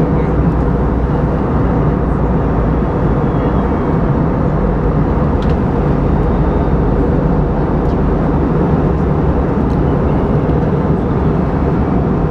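Steady in-flight cabin noise of an Airbus A320-232 on descent, heard from a seat beside the wing: the IAE V2500 turbofan's hum mixed with the rush of air past the fuselage.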